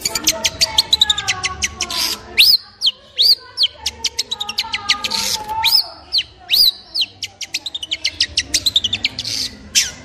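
Long-tailed shrike singing: fast runs of sharp clicking notes, several a second, mixed with a handful of high, arched whistled notes through the middle and lower warbling phrases.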